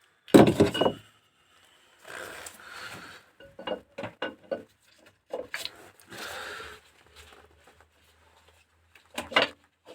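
Engine parts being handled by hand during a camshaft swap: a short loud clatter about half a second in, then scattered clicks, scrapes and rubbing, and a couple of sharp clicks near the end.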